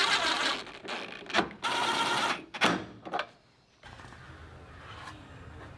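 Cordless impact driver running in short bursts, one of them longer, as it backs out the screws holding a mini truck's front bumper panel, with a few sharp clicks of plastic and metal parts coming loose. From about three and a half seconds on, only a low quiet hum is left.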